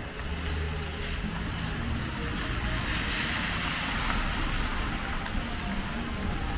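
Car driving past on a wet street, its tyres hissing on the wet road, the hiss swelling to its loudest about three to four seconds in over a low engine hum.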